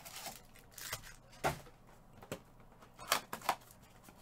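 Trading-card packs being handled and set down on a table: about five short taps and rustles, a second or so apart.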